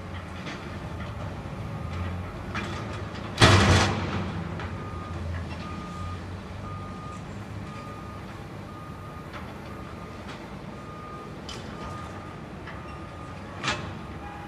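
A steady electronic beeping, about two short beeps a second, over a low rumble. A sudden loud burst of noise about three and a half seconds in.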